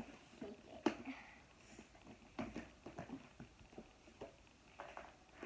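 Scattered light taps and clicks of small plastic fidget toys and bins being handled and set down, with one sharper click about a second in.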